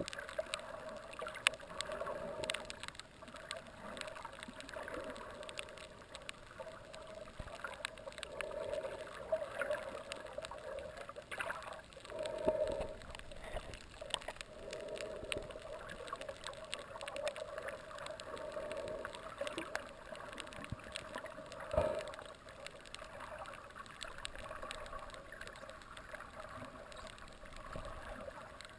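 Underwater water noise heard through a camera housing, with many scattered sharp clicks and a couple of louder rushing swells.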